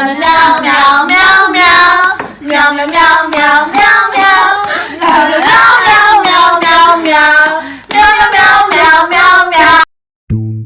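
A high-pitched voice in drawn-out, wavering sung phrases with short breaks between them, cutting off abruptly near the end.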